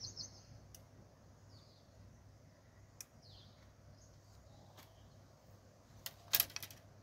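Quiet outdoor ambience with a low steady hum, a few faint bird chirps near the start and a couple of light clicks. About six seconds in comes a brief, louder burst of rustling crackle.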